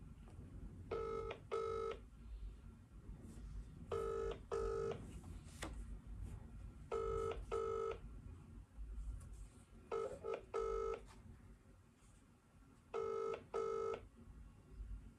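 Phone ringback tone heard through a mobile phone's loudspeaker: the British double ring, two short buzzing rings then a pause, repeating about every three seconds, five times, while the dialled number goes unanswered.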